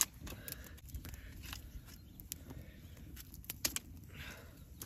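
A knife carving a stick by hand: scattered small clicks and a short scraping shave about four seconds in, with a sharp click at the very start.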